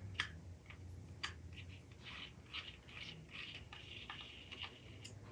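Faint clicks and short scraping rustles of small parts on the Cain puppet figure's arm being handled and worked loose, over a low steady hum.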